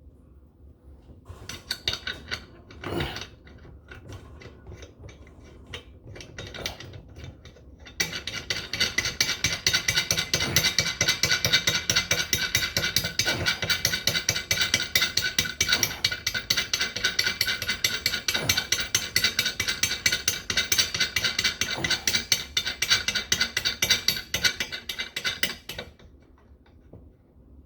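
A ratcheting tool clicking rapidly and continuously as the new faucet's mounting nut is tightened from under the sink. Scattered knocks and clicks come first; about eight seconds in, the fast ratcheting starts and runs until it stops abruptly near the end.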